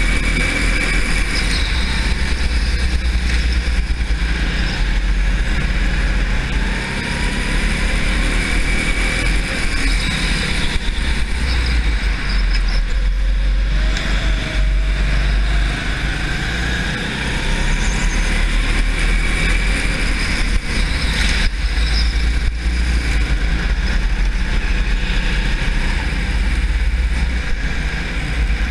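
Rimo rental go-kart engine running at race pace, its pitch rising and falling as the kart slows for corners and accelerates out of them, over a heavy constant low rumble.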